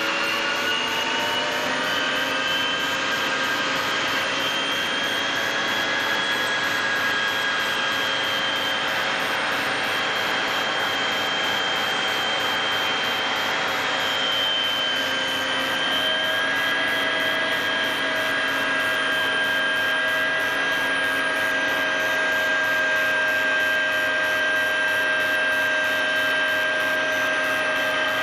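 Steady turbine noise: a rushing drone with several high whining tones that drift slightly in pitch, growing a little louder about sixteen seconds in.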